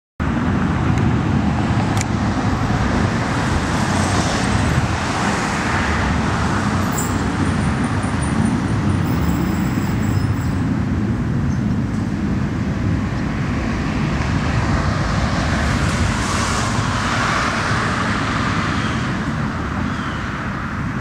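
Continuous deep low rumble heard outdoors together with road traffic noise, passing vehicles swelling about five seconds in and again later. The rumble is an unexplained sound that the recordist says sounds nothing like jet aircraft.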